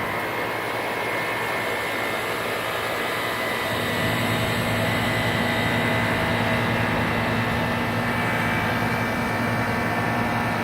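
Outdoor compressor unit running with a steady hum over a whoosh of noise, a little louder from about four seconds in.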